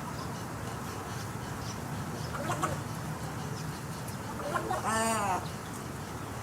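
Snowy egret calls: a faint short call about two and a half seconds in, then a louder, rasping, pitched call about five seconds in, over a steady low background rumble.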